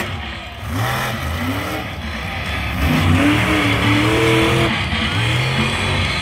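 Monster truck engine revving hard, its pitch climbing and falling several times and peaking about four seconds in.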